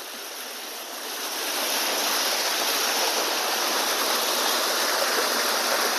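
Small waterfall splashing and rushing steadily, growing louder over the first couple of seconds and then holding steady.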